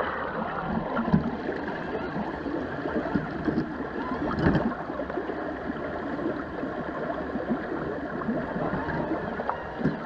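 Shallow creek water rushing and gurgling over rocks close to the microphone, with a few short knocks and splashes.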